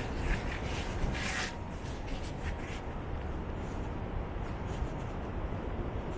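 Steady low rumble of city ambience, with a few faint scuffs and rustles in the first few seconds.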